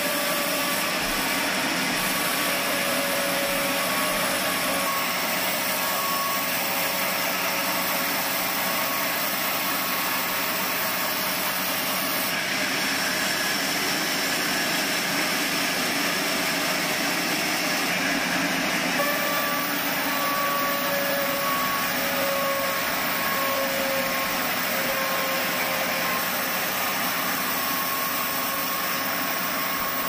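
Large band saw running and ripping a squared timber, a steady whir of blade and wood with a faint whine that wavers in pitch.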